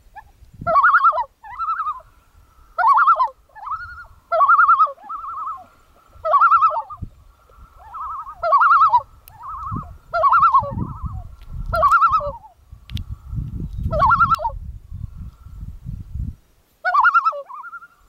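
Common loon calling: a long run of short, wavering, quavering phrases repeated every second or two. A low rumble sits under the calls through the middle of the run.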